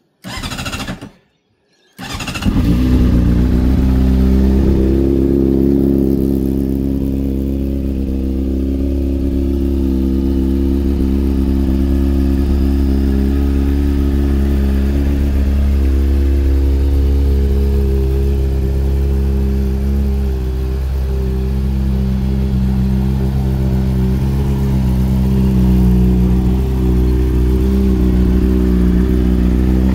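Honda CBR600RR's inline-four engine being started: the starter cranks for about a second, stops briefly, then the engine fires about two seconds in and settles into a steady idle through its aftermarket slip-on silencer.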